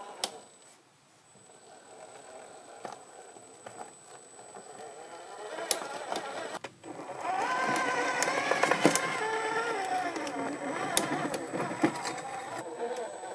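Electric drive motor and gear whine of a 1/8-scale Traction Hobby KM5 G550 RC crawler climbing rocks, the pitch rising and falling with the throttle. It is quiet at first and louder from about seven seconds in, with sharp clicks and knocks of tyres and chassis against the rock.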